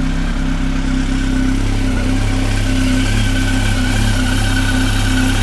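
Honda CB1300's inline-four engine idling steadily.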